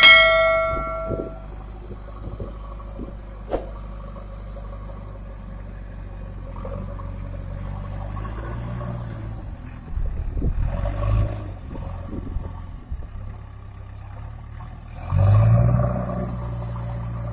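Diesel engine of a JCB 3DX backhoe loader running and revving under load, surging louder in bursts around the middle and strongest near the end, where a hiss comes in with it. A short, loud pitched tone sounds right at the start.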